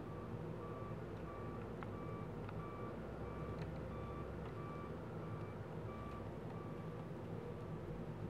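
Backup alarm of a John Deere 624J wheel loader beeping at an even pace, about one and a half beeps a second, while the loader reverses, over the low, steady running of its diesel engine. The beeping stops near the end.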